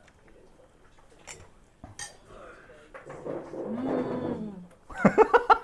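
A few light clinks of chopsticks and utensils against bowls, then a drawn-out 'mmm' of approval from someone tasting hot food, rising and falling in pitch. A burst of laughter comes near the end.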